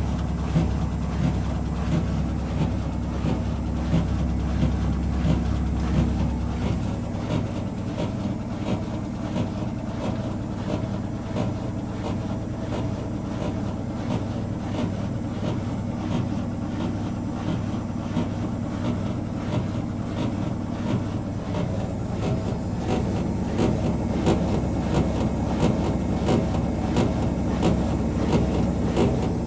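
Whirlpool 5 kg washing machine on its final spin, the drum running off balance with a steady whirr and rapid rattling and knocking. The deep hum shifts about seven seconds in.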